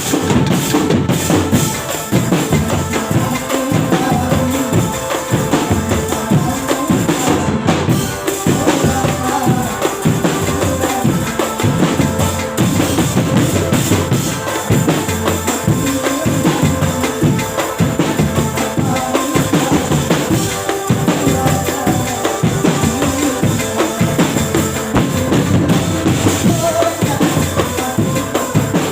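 Loud percussion-led music: drums and jingling hand percussion keeping a steady, driving beat.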